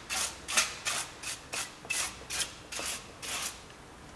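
Aerosol lubricant spraying in short hissing bursts, about ten of them at roughly three a second, stopping about three and a half seconds in.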